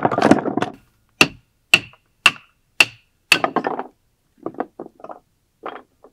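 Firewood being worked by hand: five sharp wooden knocks, evenly spaced about half a second apart, each with a brief ring. They are followed by a short rustle and a few softer clatters of split pieces being handled on a wooden deck.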